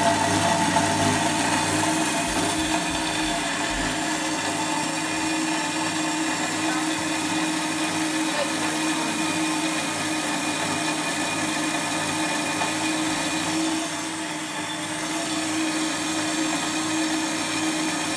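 Hafco BS-5V portable bandsaw running steadily under load, its blade cutting through 10 mm mild steel plate with a constant motor whine. The level dips briefly about fourteen seconds in.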